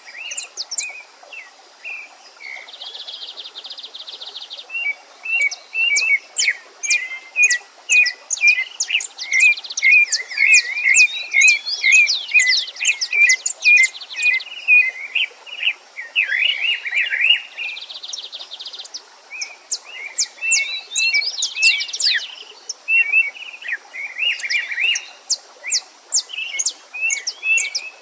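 Several songbirds chirp and sing together in a dense, overlapping chorus of quick chirps, high sweeping notes and a few buzzy trills. Beneath them runs the faint steady rush of a stream.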